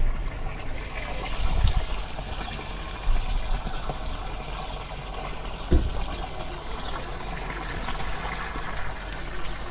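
Fountain water spouting from a lion-head spout and splashing steadily into the stone basin, with a couple of brief low thumps.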